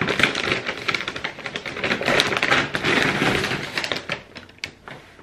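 Brown paper takeaway bags rustling and crinkling as they are handled and pulled apart: a dense crackle of paper that thins out to a few separate crackles about four seconds in.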